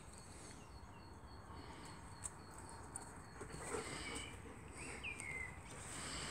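Faint outdoor background with a few short, high bird chirps, one of them falling in pitch about five seconds in.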